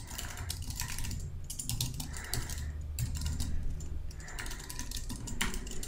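Typing on a computer keyboard: a run of quick, irregular key clicks as a line of text is entered.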